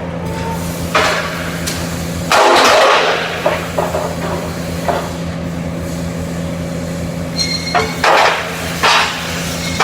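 Steady machine hum in a metalworking shop, broken by clanks of metal and short, harsh bursts of noise, the loudest lasting about half a second a couple of seconds in.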